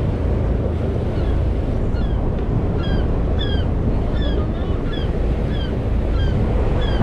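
Steady wind and water rumble on the microphone by the water. From about a second in, a short falling chirp repeats roughly twice a second over it.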